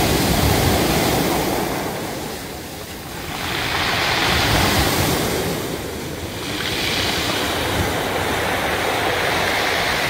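Ocean surf breaking and washing up a pebble beach, a steady rush of water that swells and eases every few seconds.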